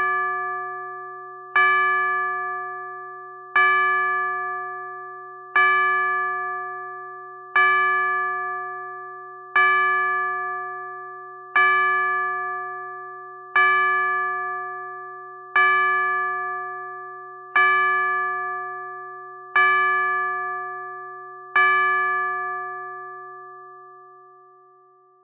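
A clock bell striking the hour: the same ringing note struck about every two seconds, eleven times here. Each strike rings on into the next, and the last is left to fade away.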